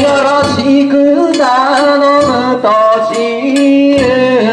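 Danjiri hikiuta (cart-pulling song) sung in drawn-out Japanese folk style: long held notes that waver and slide slowly from pitch to pitch, without accompaniment.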